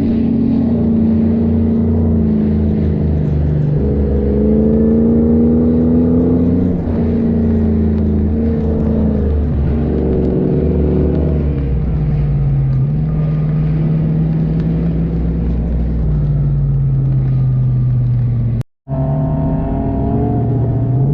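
4x4 vehicle engine running under load while driving off-road, its pitch rising and falling with throttle and gear changes. The sound cuts out for a moment near the end.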